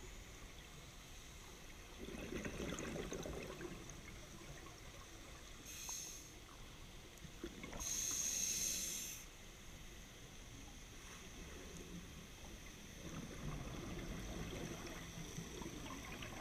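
Scuba regulator breathing heard underwater: a bubbling rumble of exhaled air, a short high hiss of inhalation and then a longer, louder one about halfway through, and another bubbling exhalation near the end.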